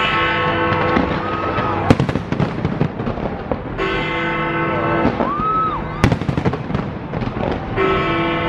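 Fireworks display: crackling bursts with sharp bangs about two and six seconds in, over the display's music, whose long held chords come back about every four seconds.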